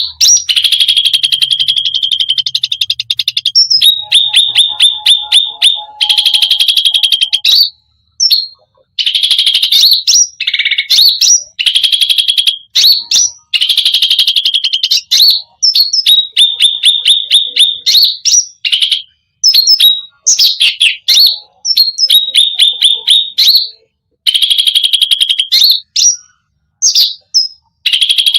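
Cucak rante songbird singing a full, varied song of rapid chattering trills. The trills come in repeated phrases of one to two seconds with short pauses between them, mixed with a few separate whistled notes.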